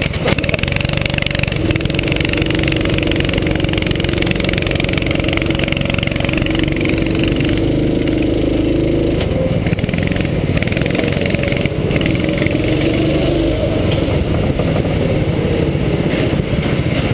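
Go-kart engine running steadily, heard from on board the kart with a dense low rumble, its note shifting up and down as the kart drives.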